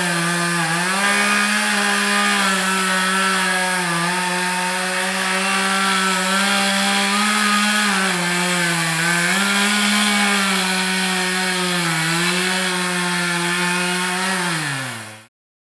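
Chainsaw running at high speed and cutting into a dead tree, its engine pitch dipping briefly several times as the chain bites into the wood. Near the end the pitch drops and the sound cuts off suddenly.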